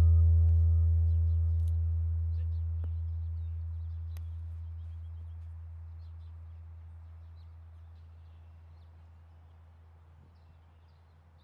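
A single deep bass note from electronic background music, fading slowly to near silence over about ten seconds, with faint bird chirps behind it.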